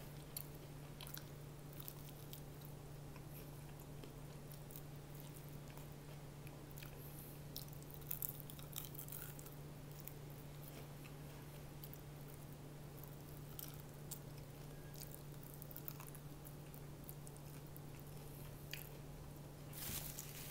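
A person chewing and biting crispy fried chicken, with scattered short crunches and mouth clicks, a cluster about eight seconds in and a stronger one near the end. A steady low hum runs underneath.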